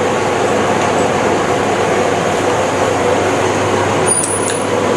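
Steady machine noise with a faint hum in it, unchanging and without distinct knocks or clicks.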